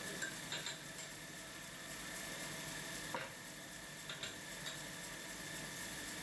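Metal-spinning lathe running with a steady hiss while a hand-held spinning tool works the turning silver, with a few short sharp clicks of the tool against the metal.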